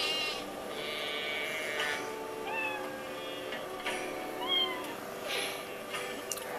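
A kitten mewing, a series of short, high-pitched mews, heard through a TV speaker.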